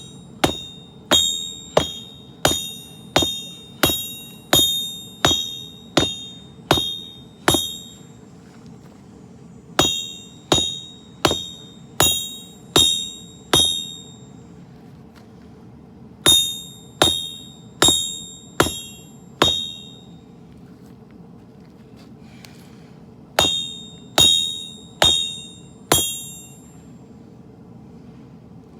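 Hammer blows on hot steel at an anvil while forging a sword blade: four runs of roughly five to twelve evenly spaced strikes, a little over one a second, each ringing briefly, with pauses of a few seconds between runs. A steady low hum runs underneath.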